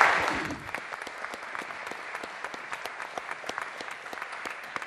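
Audience applauding: a loud swell of clapping at the start that settles into steady clapping, with single claps standing out.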